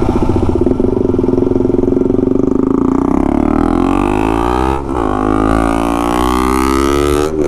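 KTM Duke 200's single-cylinder engine through a loud aftermarket free-flow exhaust, starting suddenly and pulling away hard. The note holds for a few seconds, then climbs in pitch, dipping briefly twice, about five and seven seconds in, as it shifts up.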